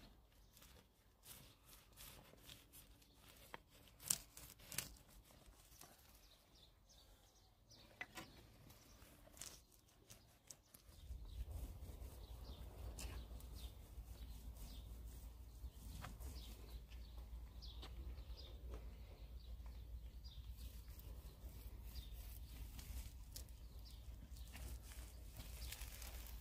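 Faint outdoor background with scattered small clicks and taps; about eleven seconds in, a steady low rumble sets in and continues.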